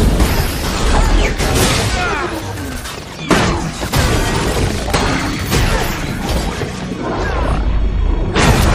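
Action film soundtrack: dramatic score mixed with crashes, shattering and drone gunfire, with sharp hits at the start, about three seconds in, and near the end.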